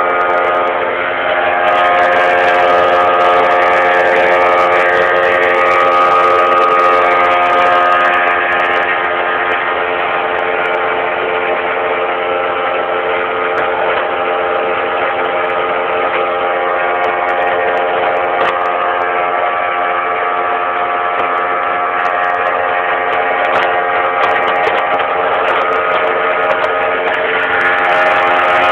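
Outboard motor of a small boat running steadily at speed: a loud, continuous droning hum whose pitch shifts slightly now and then.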